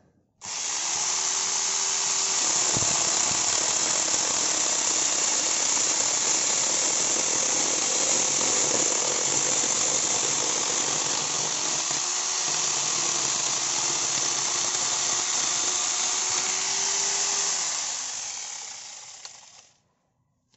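Electric angle grinder fitted with an 11.5-inch chainsaw bar attachment, switched on about half a second in and sawing through a tree branch with a loud, steady running noise. Near the end it is switched off and winds down to a stop.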